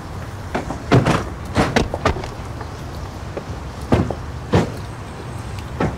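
Car doors being opened and shut: a series of short thuds, some in quick pairs, over a steady low hum.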